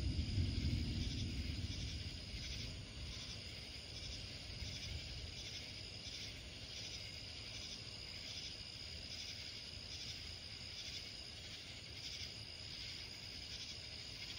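Night insects calling in a steady chorus of evenly spaced high pulses, less than a second apart. In the first two seconds a low rumble of distant thunder fades out.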